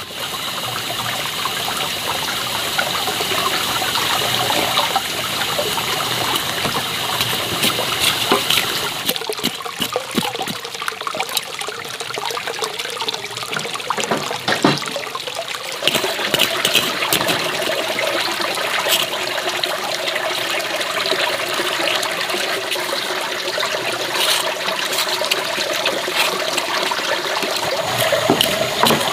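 Water running and splashing steadily, with scattered light clicks and knocks.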